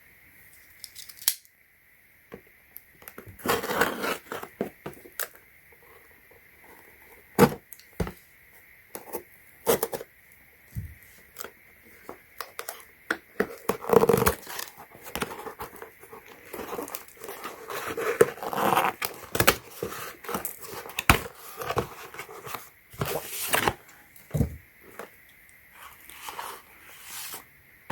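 Product packaging being opened by hand: tearing, crinkling and rustling of the wrapping with many irregular clicks and knocks as the box and cables are handled.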